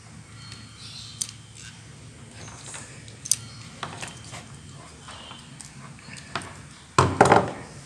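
Handling of a network crimping tool and a UTP cable with its RJ45 connector: scattered small clicks, then a louder burst of clattering about seven seconds in.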